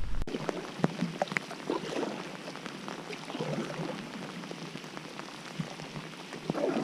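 Heavy rain falling: a steady hiss dotted with many small, sharp drop ticks.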